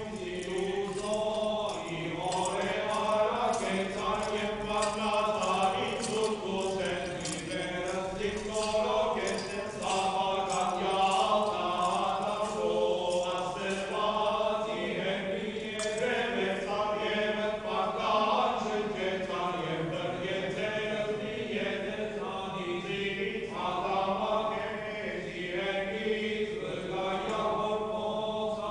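Armenian liturgical chant sung by male clergy: a slow, melismatic sacred hymn with long held, gliding notes. Light metallic jingling, typical of a swung censer's chains and bells, runs under the singing through the first ten seconds or so.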